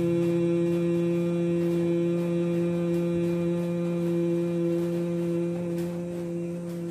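A man humming a long, steady 'mmm' on one low pitch with his lips closed, breathing out through the nose: the bee-like hum of Bhramari pranayama. The hum softens slightly and stops near the end as the breath runs out.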